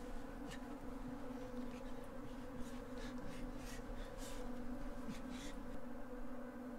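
A steady low buzzing hum, with a few short, soft breathy rustles scattered through it.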